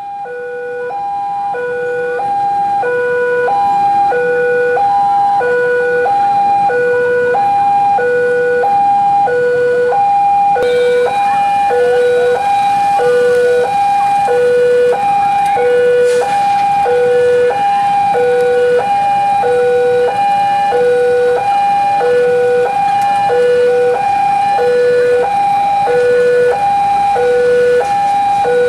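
Railway level-crossing alarm sounding through its loudspeaker: an electronic two-tone signal that alternates steadily between a low and a high tone, about one pair each second, warning of an approaching train.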